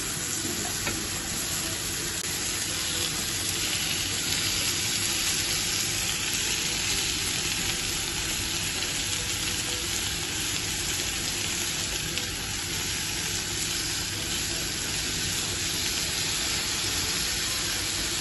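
Shrimp sizzling steadily in oil on a hot stovetop grill pan over high heat.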